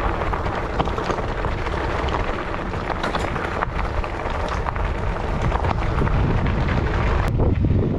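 Fat 4-inch ebike tires rolling over loose gravel, a dense crunch of small stones clicking, over a low rumble of wind on the microphone. Near the end the gravel crunch falls away and the wind rumble gets stronger.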